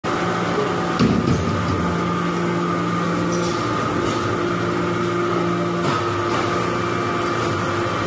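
Hydraulic briquetting press for stainless steel chips running: a steady hum of its hydraulic power unit with several held tones, a lower tone dropping out and returning a few times as it cycles. A knock comes about a second in and a sharp click near six seconds.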